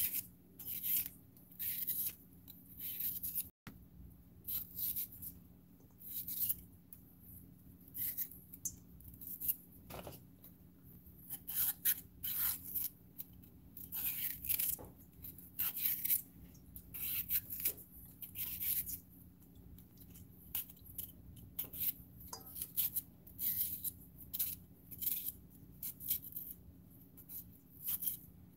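A santoku-style kitchen knife slicing through a yellow bell pepper held in the hand, a long series of short crisp cuts at an irregular pace, about one or two a second.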